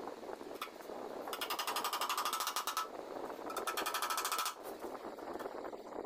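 Hammer driving nails into a chipboard cabinet frame: two runs of rapid blows, about ten a second, the first starting about a second and a half in and the second a little after three and a half seconds.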